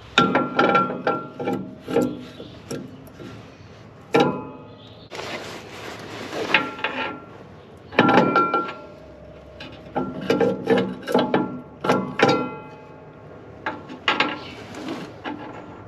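Metal clanking and rattling from a coil spring and the steel parts of a planter row unit being worked by hand as the spring is fitted. It comes in several bursts, with ringing metallic clinks.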